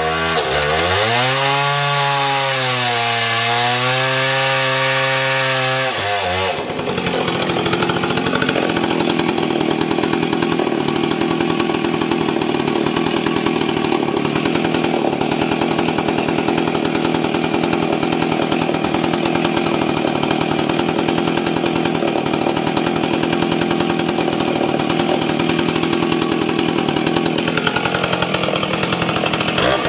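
Vintage Husqvarna two-stroke chainsaw cutting into a wooden stump, its engine note dipping and rising under load for about six seconds. It then drops back to a steady idle, and revs up again near the end.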